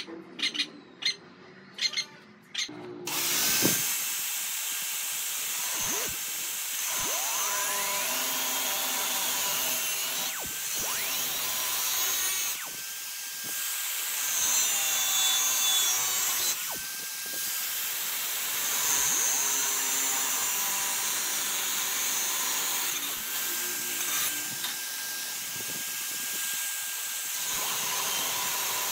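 Corded angle grinder with a thin abrasive cutting disc cutting through thin-walled galvanized square steel tube. Its high whine cuts out briefly several times and rises in pitch again as the disc bites back in. A few light clicks come before the grinder starts, about three seconds in.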